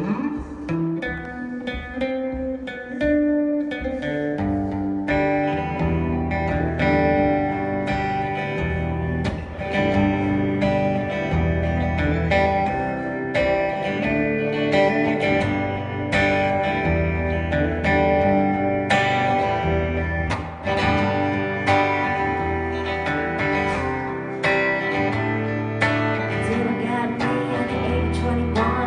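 Live band playing an instrumental passage led by guitar, with bass coming in fuller about five seconds in over a steady beat.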